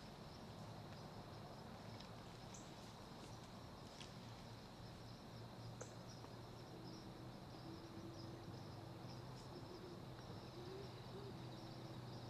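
Faint outdoor field ambience close to silence, with a steady high insect drone; a faint low steady tone comes in about halfway through.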